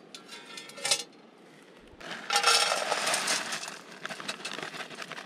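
Dry stuffing mix pouring out of a crinkling foil pouch and rattling into a small metal cooking pot, heaviest for about a second from two seconds in, then a few scattered ticks as the last bits fall.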